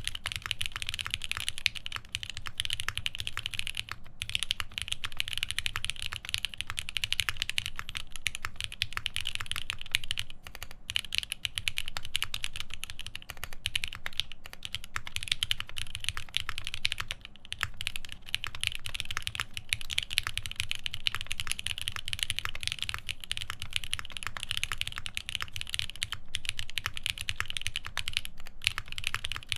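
Continuous fast typing on a custom mechanical keyboard with lubed Alpaca v2 linear switches, GMK keycaps and a half FR4 plate: a dense patter of key clicks, broken by a few short pauses.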